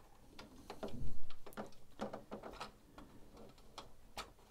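Hard plastic parts of a large transforming robot figure clicking and knocking as hands handle and fit its panels and tabs, with scattered clicks and a small cluster of knocks about a second in.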